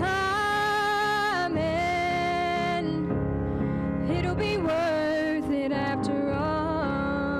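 A woman singing solo while accompanying herself on piano, holding long notes.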